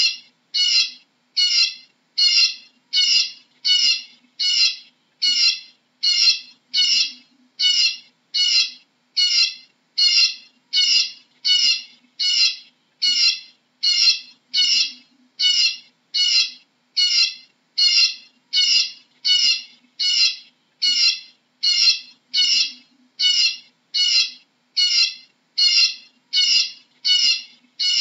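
Eurasian bullfinch calling: short, harsh calls repeated evenly, about three every two seconds.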